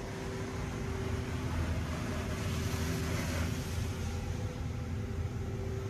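Touch-free car wash spraying water over the car, heard from inside the cabin: a steady hiss of spray on the glass and body over a low, even hum. The spray hiss swells for about a second around the middle as the spray passes over.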